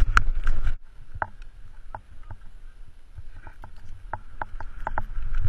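Skis running through deep powder snow, heard close up with wind buffeting the microphone, heavy for the first second and then dropping away suddenly. After that a quieter swish with scattered light clicks, growing louder again near the end.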